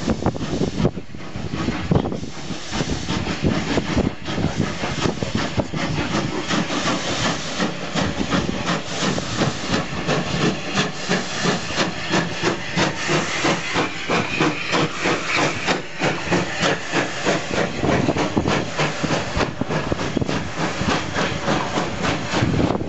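Southern Railway unrebuilt West Country Pacific 34092 City of Wells working a passenger train past under power, its three-cylinder exhaust beating in a rapid, even rhythm over the hiss of steam. Near the end its coaches roll past.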